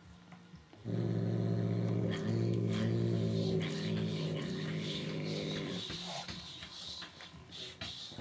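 Cat growling low and steady over a chick it holds in its mouth, for about five seconds with one short break. After that come wet, clicky chewing and crunching sounds as it bites into the chick.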